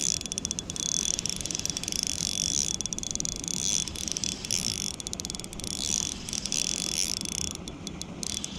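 Small Shimano Miravel 1000 spinning reel being cranked in spells: a high whirring with fine clicking that stops briefly a few times as the jig is worked back.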